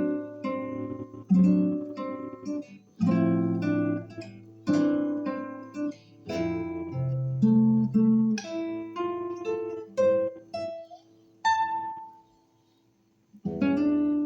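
Solo classical guitar playing fingerpicked chords and melody. About eleven seconds in, a single high ringing note sounds, and after a short pause the playing starts again near the end.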